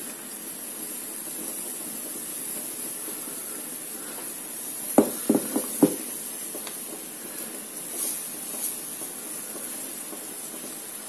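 Zucchini pancake batter sizzling steadily in a hot, oiled frying pan as more batter is spooned in and spread. About five seconds in, a metal spoon knocks sharply four times in quick succession.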